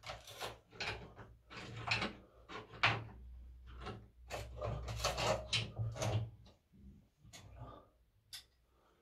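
Household objects being handled and put away: a busy run of knocks, scrapes and rustles that thins out after about six seconds, with one sharp click near the end.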